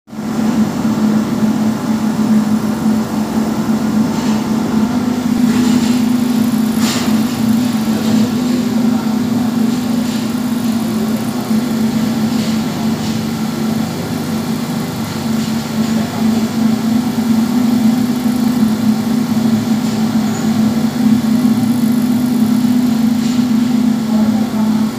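Steady, unbroken drone of a vacuum pump running, such as a helium leak detector's pump, with a strong low hum. A few faint short hisses come in the first seven seconds or so.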